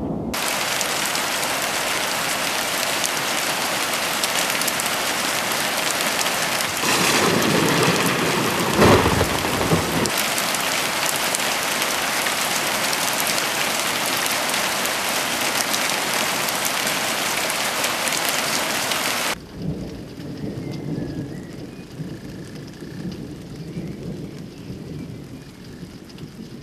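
Heavy summer rain falling steadily on a garden and a hard tabletop, with a rumble of thunder from about seven to ten seconds in. The downpour cuts off abruptly after about nineteen seconds, leaving a much quieter outdoor background.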